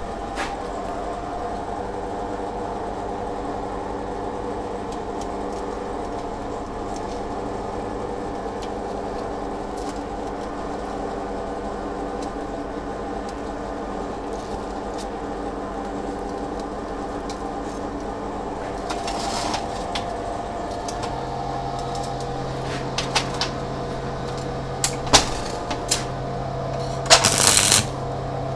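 Steady machine hum with several even tones, with scattered clicks and short bursts of noise, the longest lasting about a second near the end.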